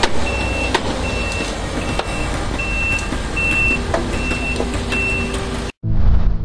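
Vehicle reversing alarm beeping steadily, about one beep every three-quarters of a second, over a low engine rumble and a few sharp knocks. It all cuts off near the end into a short whoosh.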